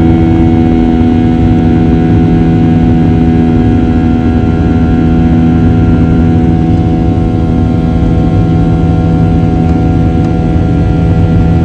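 Airliner in flight heard from inside the cabin: a loud, steady engine drone with several low humming tones over a rumble.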